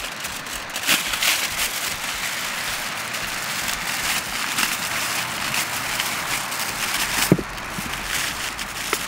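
Aluminium foil crinkling and rustling as it is torn from the roll and pressed over roasted meat, with one sharp knock about seven seconds in.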